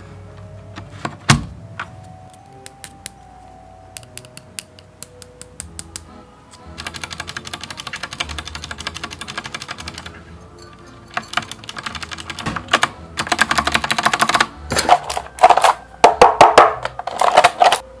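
Typing on a Lofree retro mechanical keyboard with round typewriter-style keycaps: scattered single keystrokes at first, then a fast run of clacking keys. After a short pause, the typing picks up again, faster and louder, in the last several seconds. Soft background music underneath.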